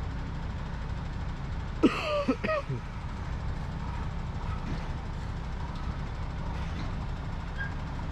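Truck engine idling with a steady low hum. About two seconds in comes a brief loud sound with a wavering, bending pitch, lasting under a second.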